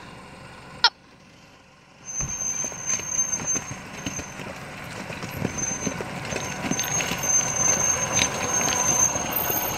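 A 4WD ute crawling slowly down a loose rocky track, its engine running low while the tyres crunch and knock over the stones, growing louder as it comes closer. A sharp click about a second in, and a high steady squeal that comes and goes.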